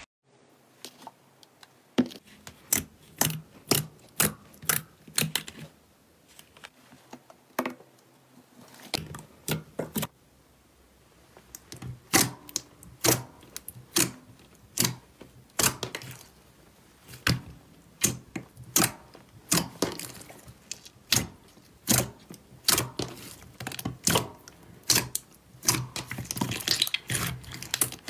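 Clear slime pressed and poked by fingers, giving sharp wet clicks and pops as trapped air is squeezed out, about one or two a second, thickening into a run of crackling near the end.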